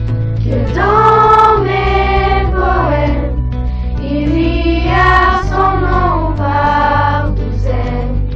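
A pop song sung by a school choir: voices hold several long notes, one after another, over a steady bass accompaniment.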